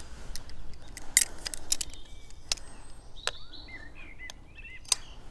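Scattered sharp metallic clicks as a thread tap is turned with locking pliers, cutting a new thread into the stripped metal tripod socket of a Canon 1D X. Birds chirp briefly in the background around the middle.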